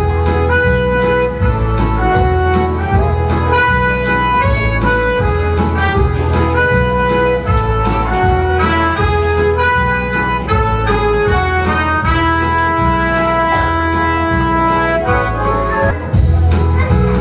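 Instrumental music with a steady beat: a melody of held notes over a bass line.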